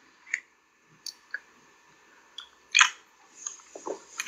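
A person chewing close to a phone microphone: scattered soft mouth clicks and smacks, with one louder smack a little under three seconds in.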